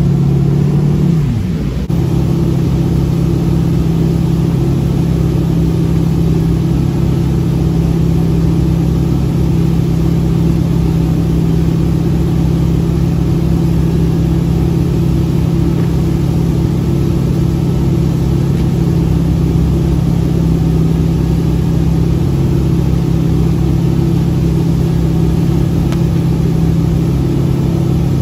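Inboard engine of a Nautique ski boat running at steady towing speed, a loud even drone with the rush of the wake and spray over it.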